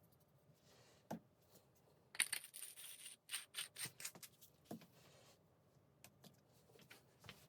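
Small steel parts clinking lightly against each other or a hard surface: a quick flurry of bright metallic clinks with a short ring about two seconds in, and a few separate clicks around it.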